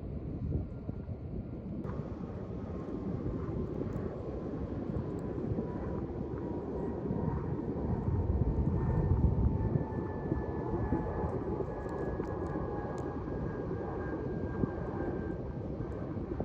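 Heavy wind rumbling on the microphone while an airplane passes overhead, its engine drone slowly falling in pitch.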